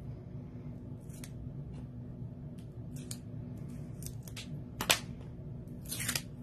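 Small craft scissors snipping, faint and spread out, with one sharper snip just before five seconds in. Near the end there is a brief crinkle of clear plastic film.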